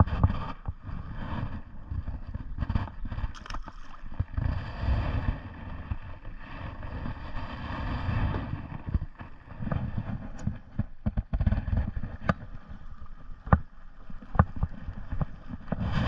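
Outboard motor running at slow trolling speed, its low hum mixed with wind buffeting the microphone. A few sharp clicks come in the last few seconds.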